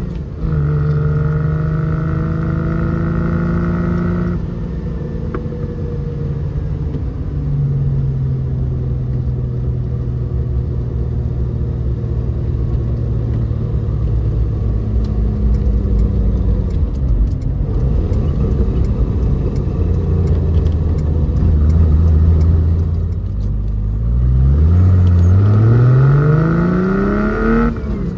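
Exhaust note of a 1970 Triumph GT6+ straight-six with fuel injection and a Bell dual exhaust, running at a steady pitch for a long stretch, then climbing steadily in pitch under acceleration near the end before dropping sharply.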